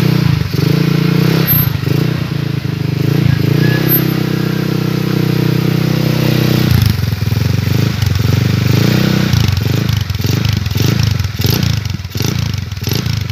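Yamaha scooter engine running cold through an aftermarket "chicken pipe" exhaust, the revs wavering and then holding steady for a few seconds. From about seven seconds in, the throttle is blipped in quick repeated pulses, about two a second.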